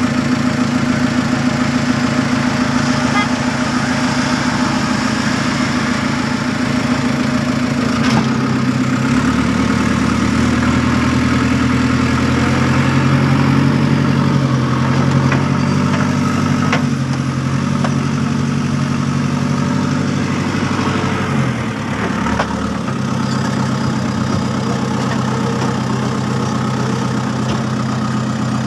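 Diesel engine of a JCB backhoe loader running steadily; its note deepens about nine seconds in and goes back to the earlier note a little over two-thirds of the way through.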